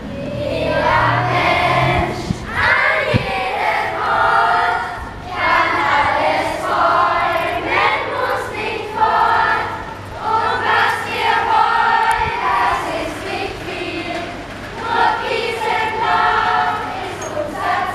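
A group of children singing together in chorus, in short phrases broken by brief pauses.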